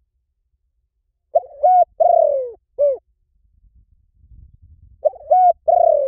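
Spotted dove cooing: a phrase of short coos, a longer falling coo and a short final coo, starting about a second in and beginning again about five seconds in.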